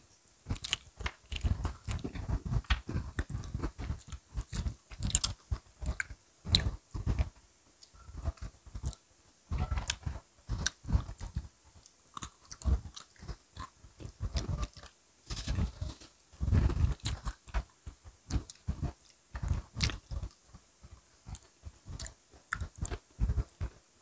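Close-miked eating of Oreo chocolate sandwich cookies: irregular crisp crunches and bites with wet chewing in between.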